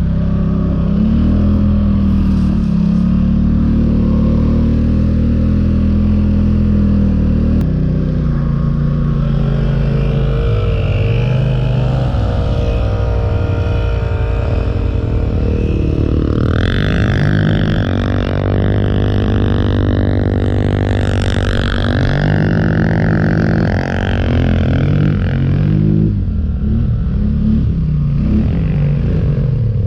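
Polaris ATV engine running under load while pushing through deep snow, its revs rising and falling. From about 16 s to 26 s it revs higher, with a high whine over the engine note.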